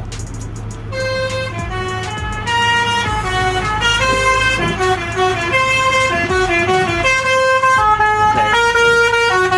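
Basuri telolet musical air horn on a bus playing a tune, note after note at changing pitches. The tune starts about a second in over a steady low hum.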